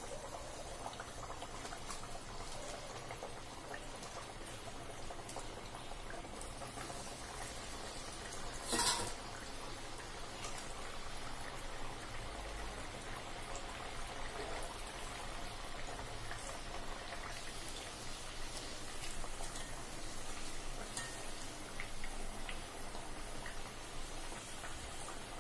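Pearl millet vada deep-frying in hot oil in a kadai, a steady sizzle with small crackles. A single short, loud knock about nine seconds in.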